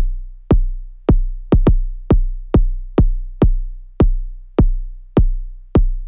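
Noise Engineering Basimilus Iteritas Alter drum synthesizer module playing a sequenced pattern of deep synthesized drum hits, about two a second, with a quick double hit about a second and a half in. Each hit is a sharp attack that drops quickly into a low tone that rings out.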